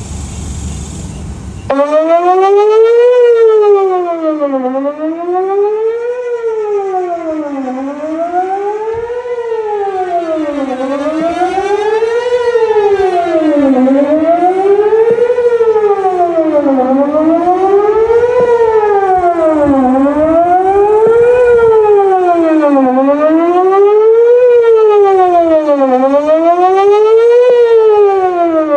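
Outdoor tornado warning siren sounding a wail during a test of the emergency warning system. It starts suddenly a little under two seconds in, and its pitch rises and falls steadily about every two seconds.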